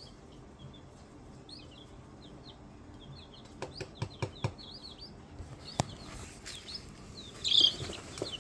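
Baby chicks peeping in short high chirps, with a few sharp knocks partway through and a louder burst of peeps near the end.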